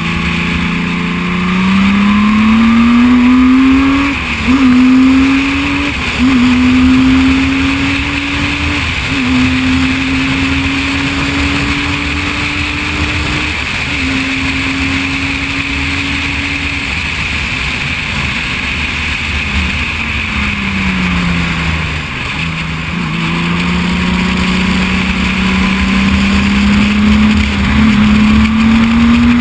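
Onboard sound of a Reynard single-seater's 3.5-litre V6 race engine under hard acceleration, its pitch climbing and briefly dropping at each of several upshifts in the first half, held high along the straight, then falling as the car slows for a corner and climbing again as it accelerates out. Steady wind rush runs under the engine.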